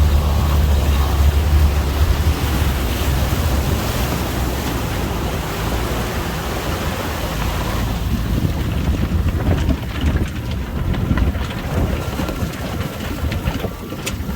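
Amphibious all-terrain vehicle running afloat: an engine drone with water noise and wind buffeting the microphone. The engine drone is strongest in the first few seconds and fades after about eight seconds, leaving mostly water and wind noise.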